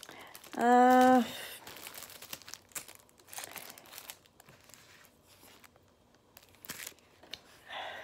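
Plastic packaging and sheets of clear stamps crinkling and rustling as they are handled, in scattered bursts. A woman's short, steady hum about half a second in is the loudest sound.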